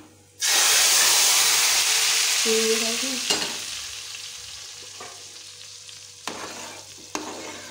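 Hot oil with browned garlic (a tadka) poured into a pot of cooked moong daal: a sudden loud sizzle about half a second in that slowly dies away over the following seconds. A few light knocks come near the end.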